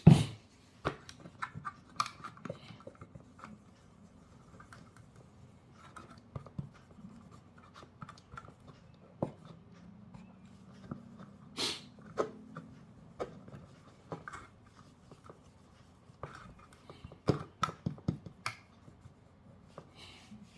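Intermittent scratching and rubbing from cleaning old, dried thermal paste off an FPGA chip and its heatsink with alcohol, with scattered light clicks and taps from handling the parts. A sharp knock right at the start and another near the middle are the loudest sounds.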